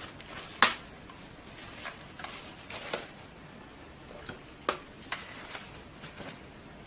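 Scattered clicks and knocks of plastic parts of a Swivel Sweeper G6 cordless sweeper being handled and fitted together, with the loudest sharp click about half a second in.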